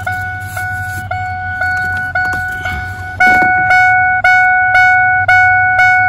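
2002 Ford F-150's warning chime (the dinger) dinging steadily about twice a second with the key out, louder from about three seconds in. It is the sign of a fault that is not in the ignition switch.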